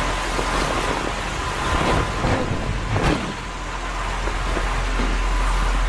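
Electric pedestal fans running: a steady whooshing hum with a faint steady tone over it. A few louder rustles and a soft thump come about two and three seconds in, from a man dropping onto a sofa.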